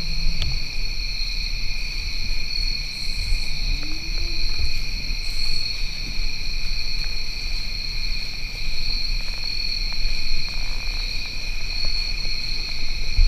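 Evening woodland insect chorus, a steady drone at two high pitches, over a low rumble.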